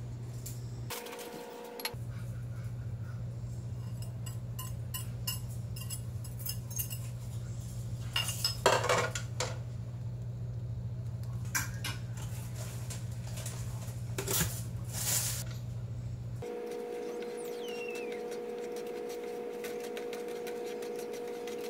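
Kitchen cooking sounds: scattered clinks and knocks of a frying pan and utensils over a steady hum, with a wooden spatula stirring scrambled eggs in the pan near the end.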